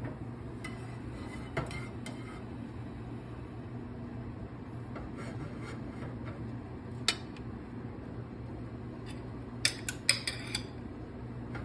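Kitchen dishes and utensils clinking now and then on the counter, a few sharp knocks with several close together near the end, over a steady low hum.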